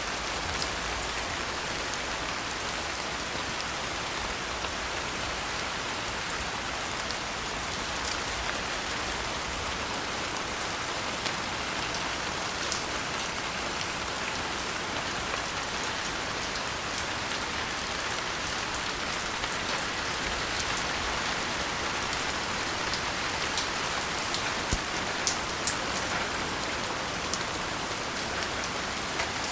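Steady rain falling, with a continuous hiss and scattered sharp drop taps, a few louder ones near the end.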